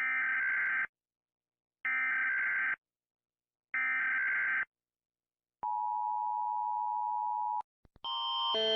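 Emergency Alert System broadcast alert opening: three one-second bursts of screeching digital data tones, the SAME header, then a steady attention tone for about two seconds. Near the end, after a couple of clicks, a different alarm of alternating tones starts and grows louder.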